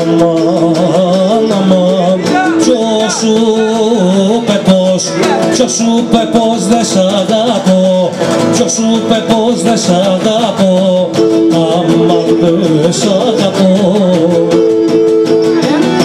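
Traditional Cretan music: a Cretan lyra bows a wavering melody over two Cretan lutes (laouta) strumming steady chords.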